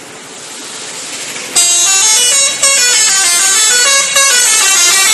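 A bus's telolet horn, a multi-tone musical air horn, plays a quick stepped melody that starts about a second and a half in. Before it, a rushing noise grows steadily louder.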